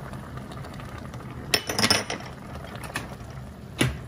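Metal soup ladle clinking against a steel pot and ceramic dishes: a quick cluster of clinks about halfway through, then a single clink near the end as it is set down on a small ceramic dish.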